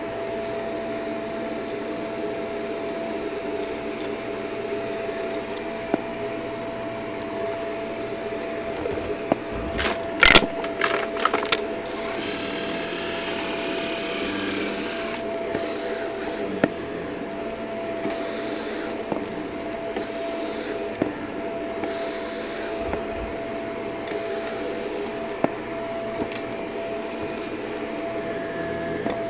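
Vacuum cleaner running steadily with a constant whine, picking up a crunchy mess: a quick cluster of sharp rattling clicks about ten seconds in, and single ticks here and there as bits of debris are sucked in.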